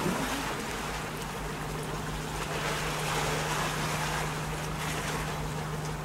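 Steady wind and sea noise with a boat motor running: an even hiss over a low, steady hum.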